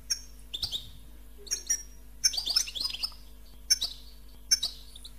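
European goldfinch calling in short, high, tinkling chirps repeated about once a second, with a longer twittering run of song near the middle.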